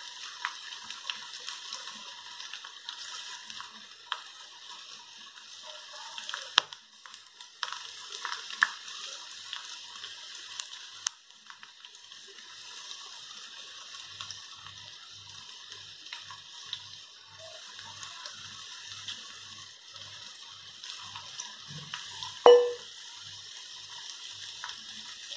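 Batter-coated okra pieces deep-frying in hot oil in a kadai: a steady sizzling hiss full of fine crackles and a few sharp pops, with a louder knock near the end.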